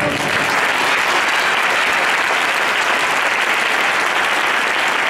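Audience applauding steadily as the routine's music cuts off at the very start.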